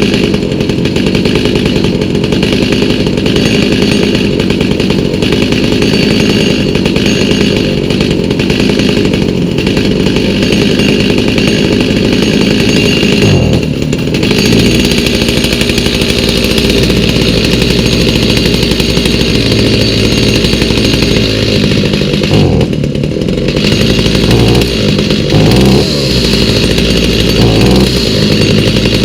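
Stihl MS290 chainsaw's two-stroke engine, fitted with a new aftermarket carburetor, running at high speed for about 13 seconds. It then drops to a lower, uneven speed, with short revs near the end.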